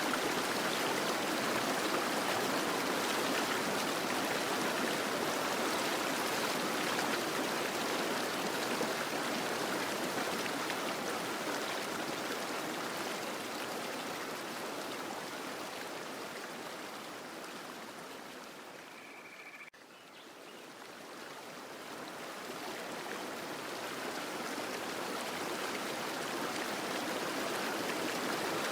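Fountain water splashing steadily. It fades down to a low point about two-thirds of the way through, breaks off briefly, then swells back up.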